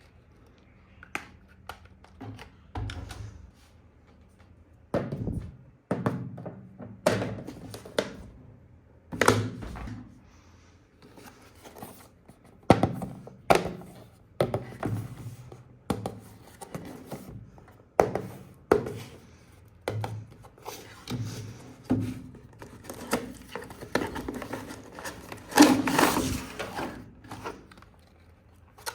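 Packaging and toy parts being handled during an unboxing: irregular knocks and thunks every second or two, some with brief rustling or scraping, and a louder stretch of rustling near the end.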